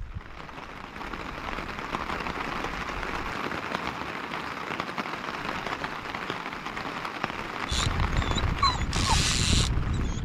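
Steady rain falling, slowly growing louder. Near the end a low rumble and a brief loud rush of noise join in.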